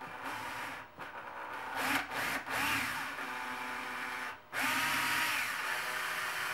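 Electric drill/driver running in short bursts while driving screws. The motor whine stops briefly about a second in and again near four and a half seconds, then starts up again.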